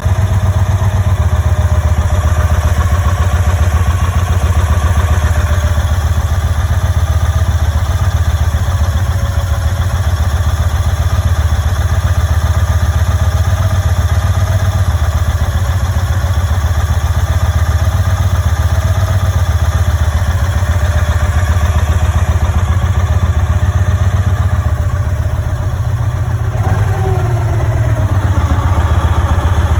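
Motorcycle engine running steadily at idle, dipping briefly near the end before settling back. The recording is meant to show a noise problem with the bike, its cause not identified.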